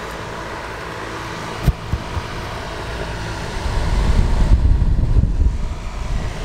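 18-inch exhaust fan running on high, pushing air out through its open aluminium shutter louvers, with a single short knock about a second and a half in. From about three and a half seconds in, the exhaust air buffets the microphone with a gusty low rumble.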